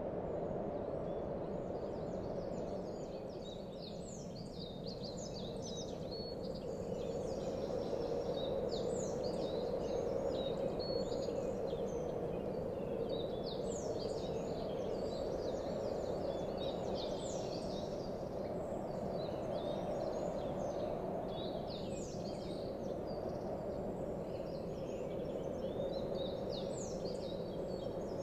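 Outdoor nature ambience: clusters of short, high chirps from small birds every few seconds over a steady low rushing noise.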